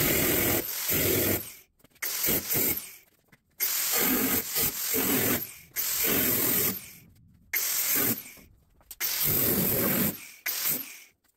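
Angle grinder cutting through the sheet-steel roof pillars of a 1953 Chevy truck cab, in a series of hissing bursts of one to two seconds each with short pauses between.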